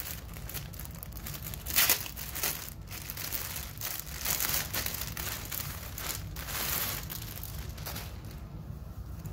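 Thin clear plastic poly bag crinkling as it is opened and a sweatshirt is pulled out of it, in irregular crackles that die down near the end.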